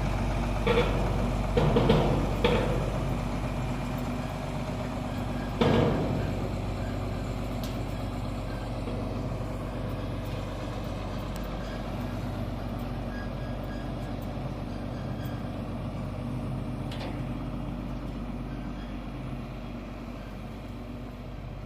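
Heavy machine's engine idling steadily, with a few knocks in the first seconds and a louder one about six seconds in.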